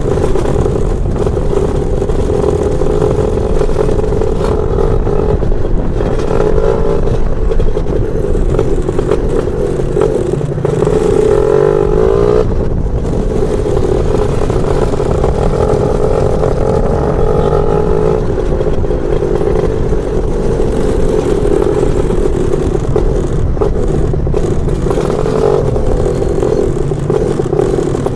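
Lambretta scooter with a BFA 325 two-stroke engine running under way, its note rising and falling with the throttle. About twelve seconds in the revs climb and then break off sharply, as at a gear change.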